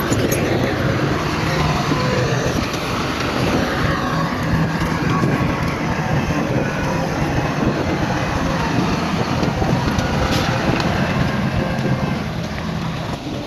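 Heavy diesel earthmoving machinery, a bulldozer or dump truck, running steadily with a low engine drone under a dense mechanical rumble.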